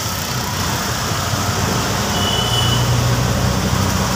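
Auto-rickshaw riding along, its motor giving a steady low hum under continuous road and wind noise through the open sides. A brief faint high tone sounds about two seconds in.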